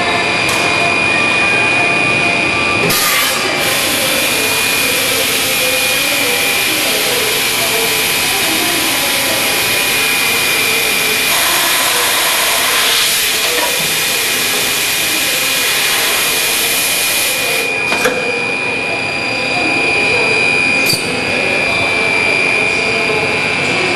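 Container-making machine for 5-litre containers running, with a steady high-pitched whine. A loud hiss starts suddenly about three seconds in, runs for some fifteen seconds and cuts off sharply, and a few sharp clicks stand out.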